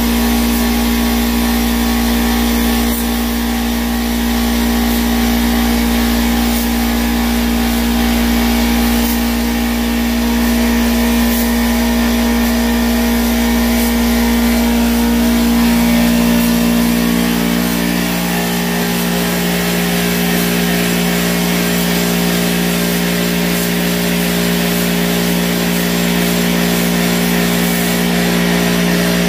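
Air compressor motor running steadily under the hiss of an HVLP spray gun spraying paint; about sixteen seconds in, the compressor's hum drops a little in pitch and takes on a faint regular pulsing.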